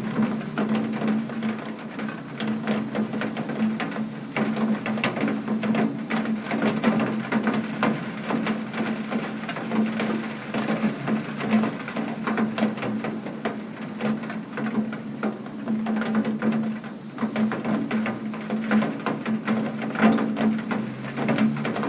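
Rain falling steadily, many drops striking a surface as dense, irregular ticks, over a steady low hum.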